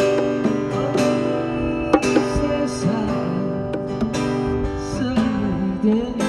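Music: acoustic guitar strummed in an instrumental passage of a song, with a melody line above it that bends in pitch.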